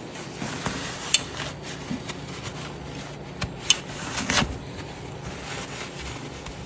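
Paper towel rubbing and rustling as spilled coolant is wiped off engine parts, with a few light clicks and knocks from handling.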